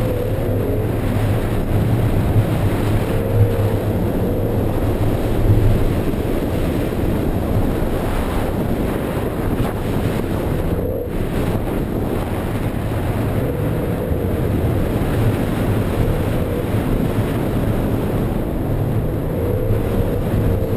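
BMW E46 M3's straight-six engine heard from inside the cabin, running at mid revs with its pitch rising and falling as the throttle is worked while drifting on a wet surface. A steady hiss of tyres and water spray runs underneath.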